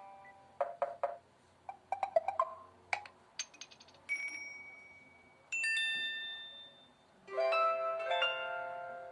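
Samsung Galaxy Trend Plus playing a run of short preloaded alert tones, one after another: plucked notes, bell-like pings and chime chords, each dying away.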